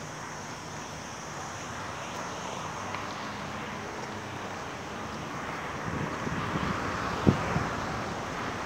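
Steady road traffic from cars passing on the street below, with wind on the microphone, growing slowly louder in the second half. One sharp knock comes about seven seconds in, followed by a fainter one.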